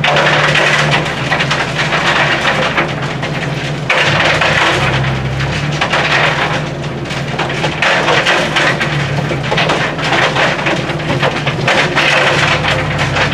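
Ore and rocks trickling from an excavator bucket into a steel feed hopper, a dense crackling rattle, over the steady drone of the excavator's engine. The engine note changes for a couple of seconds about four seconds in.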